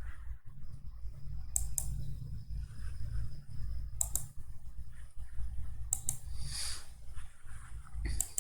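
Sharp clicks in quick pairs, about every two seconds, over a steady low hum.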